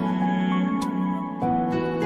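Background music: a calm, gentle instrumental with sustained notes.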